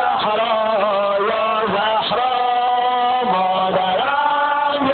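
Men's voices chanting a Shia sineh-zani mourning lament in long, held sung lines that slide from note to note.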